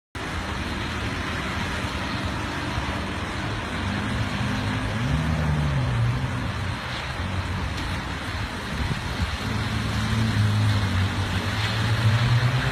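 Road traffic with car engines running over a steady rushing noise. One engine rises and falls in pitch about five seconds in, and another engine hum grows louder toward the end.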